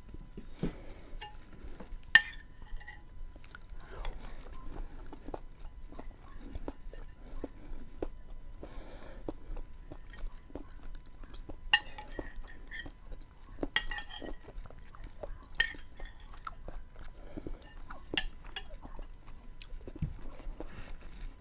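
Close-miked chewing of a bean stew with onion and tomato, soft wet mouth sounds throughout. A spoon clinks sharply against the dish about five times.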